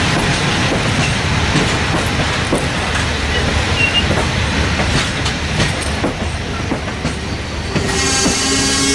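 Indian Pacific passenger train rolling past: a steady rumble of steel wheels on rail as car-carrier wagons and stainless-steel carriages go by, with scattered clicks over rail joints. A wheel squeal sets in near the end.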